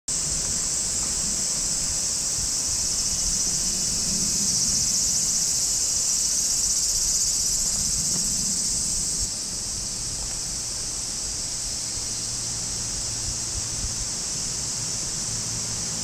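Chorus of cicadas in the summer trees: a steady, continuous high-pitched buzz that drops slightly in level about nine seconds in.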